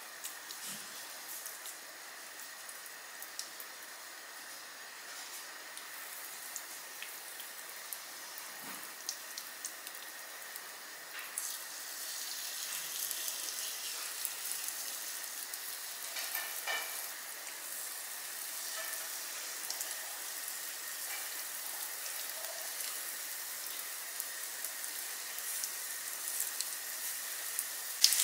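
Grated-pumpkin fritters frying in shallow vegetable oil in a nonstick pan: a steady sizzle with light crackling, growing louder about eleven seconds in as more batter goes into the pan.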